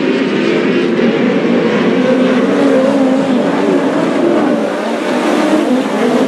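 A pack of open-wheel dirt-track race cars running at racing speed. Several engine notes overlap, each rising and falling as the cars go through the turns and past.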